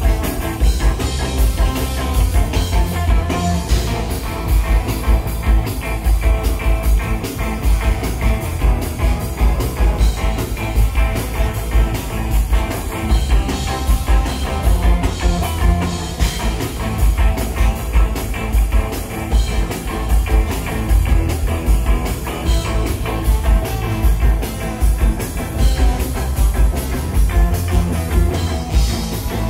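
Live rock band playing loud with a steady beat: drum kit, electric guitar and bass guitar, with a trombone.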